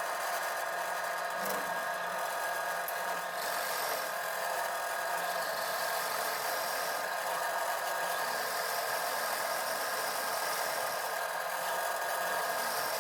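Electric drill running steadily with a Forstner bit, boring wide flat-bottomed holes in wood.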